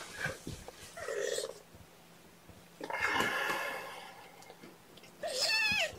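Two-week-old kittens mewing: a short mew about a second in and a louder, wavering mew near the end, with a rustle of bedding around the middle as a kitten is set down.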